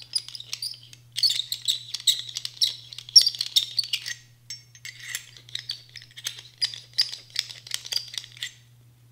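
CAT M-4 tool scraping carbon fouling out of the inside of an AR-15 bolt carrier: rapid, scratchy metal-on-metal strokes that pause briefly about halfway through and stop near the end.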